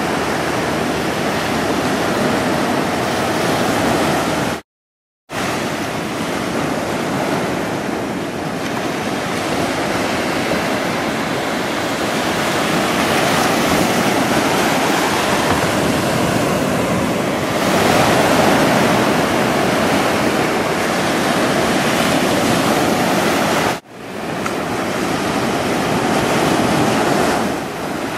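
Ocean surf washing onto a beach: a steady rushing noise that swells and eases gently. It cuts out completely for about half a second near five seconds in and dips sharply for a moment near the end, at edits in the recording.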